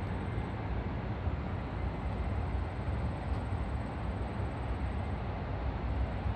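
Steady low outdoor rumble under an even hiss, with no distinct events: city ambience.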